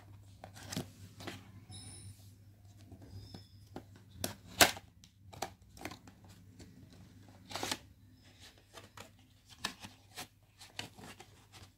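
Cardboard retail box opened by hand: the end tuck flap is pried loose and the inner card tray slid out, giving scattered clicks and scrapes of card, the loudest about four and a half and seven and a half seconds in.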